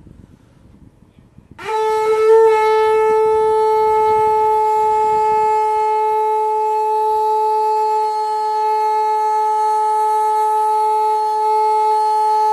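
A conch shell (shankh) blown in one long, steady note that starts about a second and a half in, with a slight rise in pitch at the attack, then holds without a break.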